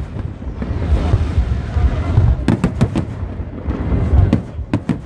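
Aerial fireworks bursting over a continuous low rumble, with sharp bangs: a quick cluster of about three about halfway through and a few more near the end.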